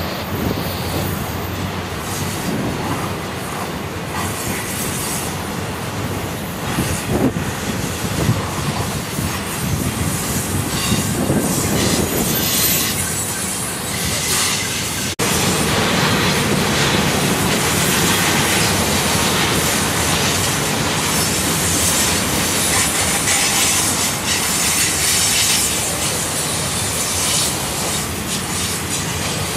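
Double-stack intermodal freight train rolling past: steel wheels rumbling and clicking along the rails, with brief high-pitched wheel squeal on the curve. It gets suddenly louder about halfway through.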